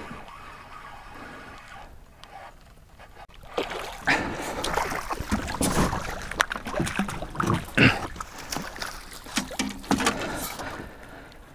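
Water splashing and sudden knocks in a small fishing boat as a hooked perch is brought up and handled. Quiet at first, with the splashes and knocks starting about a third of the way in.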